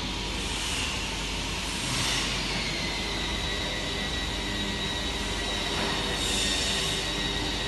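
Industrial fusing press running with a steady mechanical hum and a thin, high whine. Brief swells of hiss come about two seconds in and again near the end.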